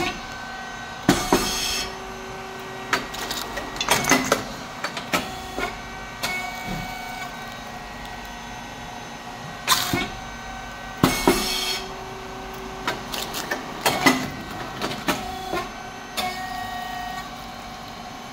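Rice cake popping machine running its production cycle: a steady hum from the hydraulic pump, motor and fan, broken by sharp mechanical clacks and short hissing bursts as the moulds press and release. The pattern repeats about every ten seconds.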